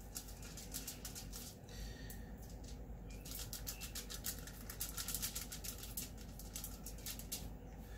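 Chef's knife trimming fat off a raw beef brisket flat on aluminium foil: a stream of faint small clicks and crackles as the blade works through the fat.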